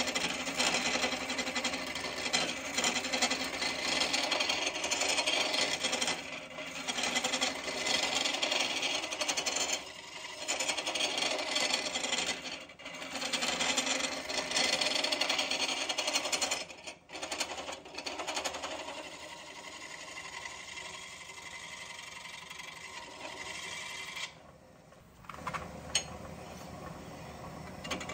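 A 5/8-inch bowl gouge shear-scraping the inside wall of a red cedar vase spinning on a wood lathe, with the lathe running. The scraping is steady and dips briefly a few times as the tool eases off the wood. It is quieter for the last several seconds.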